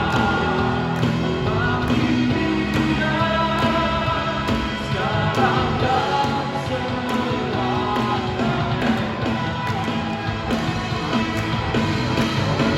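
A live worship band playing a praise song with drums, bass and electric guitar, with a voice singing over it at times.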